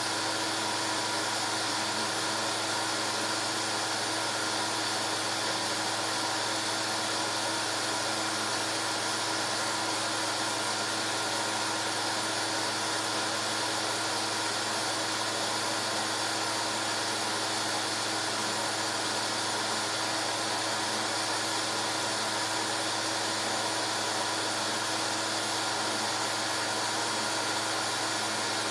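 Steady mechanical whir and hiss with a constant low hum, unchanging throughout, with no sound of its own from the silent home-movie footage.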